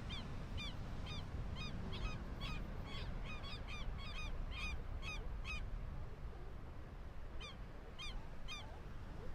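A bird calling in a rapid series of short, sharp calls, about two to three a second. The calls break off for a couple of seconds, then three more come near the end, over a steady low rumble.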